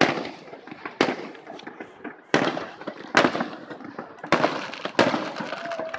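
Aerial firework shells bursting in the sky: about six sharp bangs, roughly a second apart, each trailing off into a rumbling echo.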